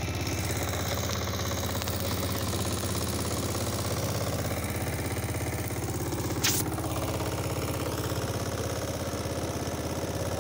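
Boat engine running steadily with a fast, even beat, and a single sharp click about six and a half seconds in.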